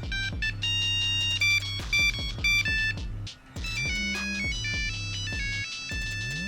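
Nokia 1100 monophonic ringtone melody: a quick run of short, high electronic beeping notes stepping up and down a tune, with a low bass line underneath.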